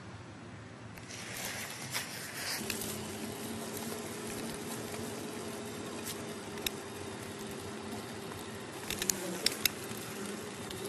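A steady buzzing drone sets in about two and a half seconds in and holds at one low pitch over a soft hiss. A few sharp clicks come near the end.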